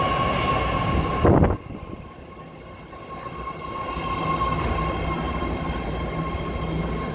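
BART Fleet of the Future subway train pulling in along the platform: a steady high-pitched whine over the low rumble of the train. A short, loud thump comes about a second and a half in, the sound dips, and then it builds again as the cars roll past.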